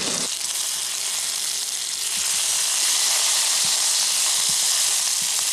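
Wood duck meat sizzling in hot oil in a frying pan, the sizzle growing a little louder about two seconds in, with a few light taps of a knife turning the pieces in the pan.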